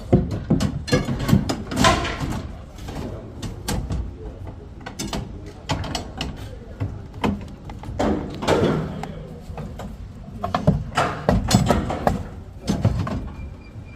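Steel reinforcement bars being bent for stair reinforcement: irregular metal clanks, knocks and scraping of the bars.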